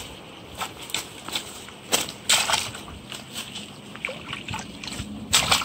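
Water splashing and sloshing in short, irregular bursts as a mesh net bag holding a caught rohu is dipped into shallow river water; the loudest splashes come about two and a half seconds in and again near the end.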